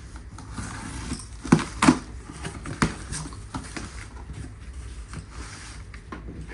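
A cardboard box being handled and opened: a few sharp knocks and scrapes between about one and a half and three seconds in, with scattered lighter clicks and rustles.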